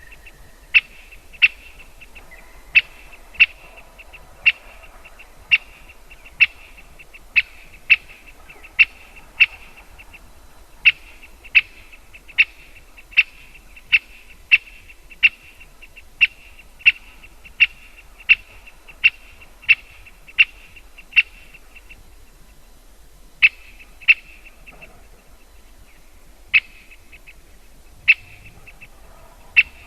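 Great spotted woodpecker giving a long series of short, sharp 'kik' calls, roughly one and a half a second, pausing twice in the latter part.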